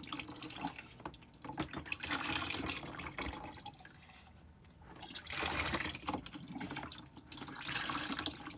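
Bilge water being pumped out of a sailing yacht's bilge and splashing into a container in irregular spurts, a second or so long, with quieter gaps between them.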